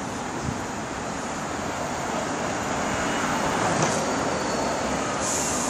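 Steady city road traffic: cars and buses passing on a multi-lane street, the rumble swelling a little midway, with a short high hiss near the end.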